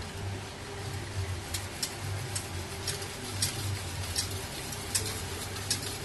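Wire whisk stirring jaggery water in a stainless steel bowl, its wires clicking against the bowl about twice a second from about a second and a half in, over a steady low hum.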